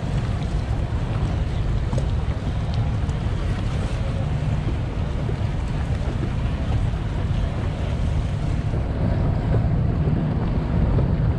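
Wind buffeting the microphone with a steady low rumble, over the wash of choppy sea water around a small boat at sea.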